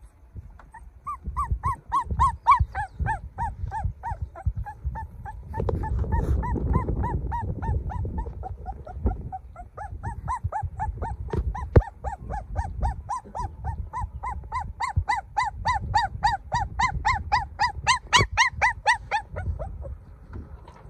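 Puppy whining in a long run of short, high, crying yelps, about four a second.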